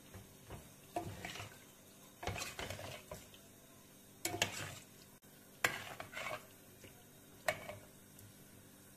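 Metal spoon stirring broccoli and vegetables in water in a stainless steel pot, scraping and clinking against the pot in irregular short bursts, with sharp clinks about four, five and a half and seven and a half seconds in.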